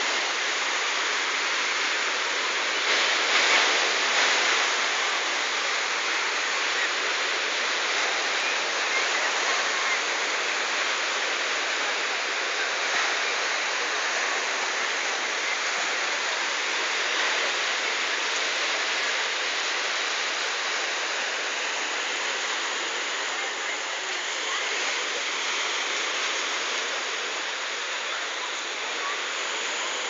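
Small waves breaking and washing over a pebble beach: a steady, even hiss of surf on shingle.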